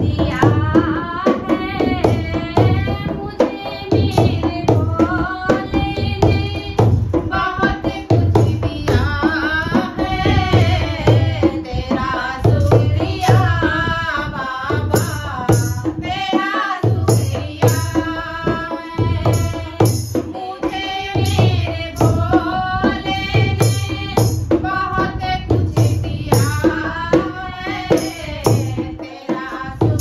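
Female voices singing a Hindi devotional bhajan to Shiva. A hand-played dholak gives a steady low beat, and a hand clapper with metal jingles (kartal) is shaken in time.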